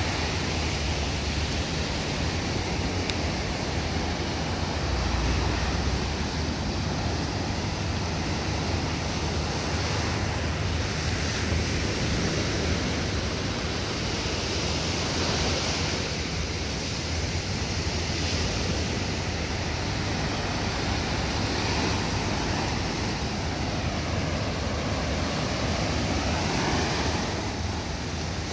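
Steady wash of small surf breaking on a sandy beach, with wind rumbling on the microphone.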